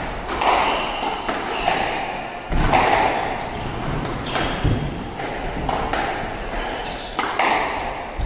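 Squash rally: the ball repeatedly smacking off racket strings and the court walls, roughly one or two sharp hits a second, each ringing out in the echoing court. A brief high squeak sounds about halfway through.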